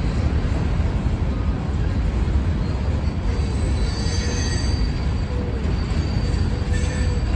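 Train rolling by on the rails, a steady heavy rumble, with faint high-pitched wheel squeal about halfway through.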